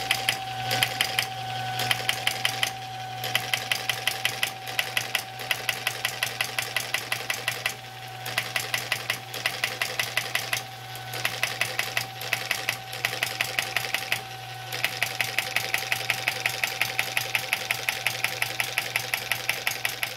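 Homemade model hit-and-miss flywheel engine firing regularly while an electric motor turns it by a belt: a fast mechanical clatter with sharp pops about three times a second, over a steady hum and whine. The firing drops out briefly several times. The engine fires but makes too little power to run on its own, which the builder puts down to low compression.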